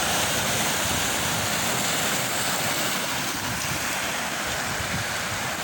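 Steady wind buffeting the microphone over the wash of water on a rocky shore.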